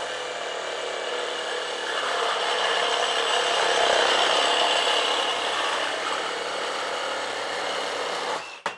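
HILTI 22-volt cordless reciprocating saw in regular (non-orbital) stroke cutting through 2.5-inch galvanized steel pipe at full speed. It grows louder in the middle of the cut and stops near the end as the blade breaks through, followed by a brief knock.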